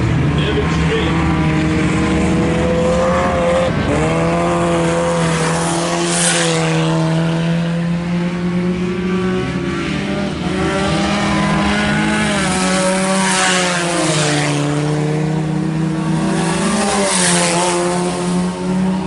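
Several IMCA Sport Compact race cars' four-cylinder engines running together, their pitch rising and falling as they circle the track. A rush of noise comes three times, about six, thirteen and seventeen seconds in, as cars pass close.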